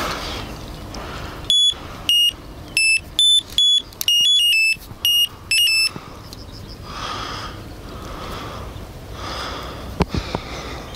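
Electronic bite alarm on a rod pod beeping in an irregular run of about a dozen short beeps at two slightly different pitches, from about a second and a half in to about six seconds in, set off by the fishing line moving over its sensor while the rod is handled.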